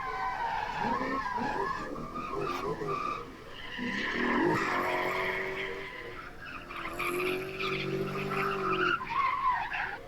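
V8-swapped BMW E28 drifting: the V8 revs up and down while the tyres squeal and skid, with a stretch of steady revs late on.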